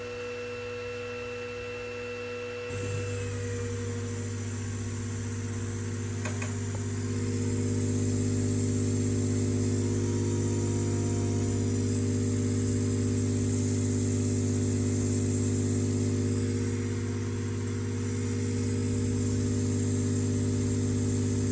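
A diode laser engraver's air-assist pump switches on about three seconds in and runs with a steady electric hum and hiss, getting louder around eight seconds in.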